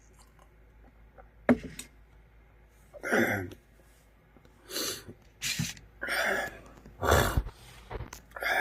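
A person's whooping cough (pertussis) coughing fit. A sharp first cough comes about a second and a half in, then six more harsh coughs follow at roughly one-second intervals, some of them drawn out.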